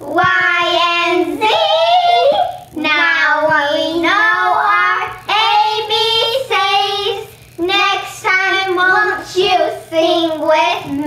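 Two young girls singing a song together, with no instruments heard.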